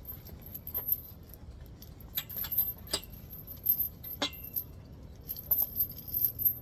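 Small metal pieces jingling and clinking in scattered light clicks, with one sharper clink that rings briefly about four seconds in.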